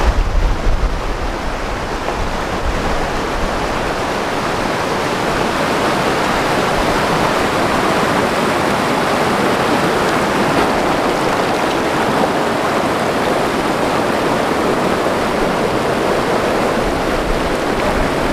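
Fast mountain stream rushing over rocks: a steady, unbroken noise of white water.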